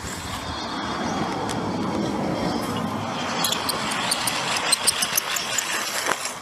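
Traditional wooden ink-line reel (meoktong) spinning as its inked string is drawn out, a steady rolling rattle with quick ticks in its second half that stops abruptly near the end.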